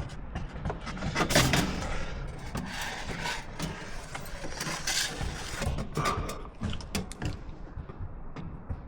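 Irregular knocks, clicks and clatter of hand work with tools and materials, with short bursts of scraping or rustling, loudest about a second and a half in.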